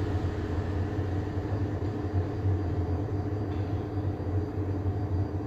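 A steady low mechanical hum and rumble, even throughout, with no distinct individual sounds.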